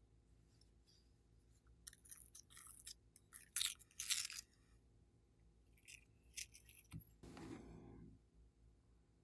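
Sticky pink glitter slime being peeled and scraped off a plastic tray: two runs of sticky crackling about two and four seconds in, then a duller rubbing sound around seven seconds.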